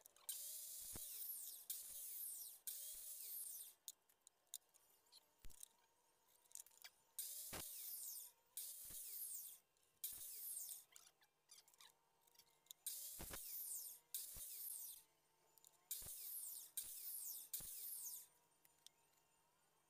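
Maktec circular saw cutting thin teak strips in short bursts of about a second each, a dozen or so in clusters, with wooden knocks between the cuts as pieces are set and moved.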